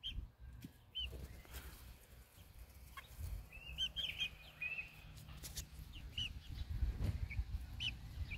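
Young chickens peeping as they forage, short high chirps scattered through, with a cluster of them near the middle. A low rumble builds near the end.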